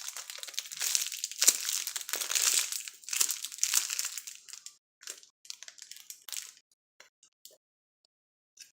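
Crinkling and crackling as a squishy toy is handled and squeezed, dense for about five seconds, then thinning to a few scattered crackles that stop before the end.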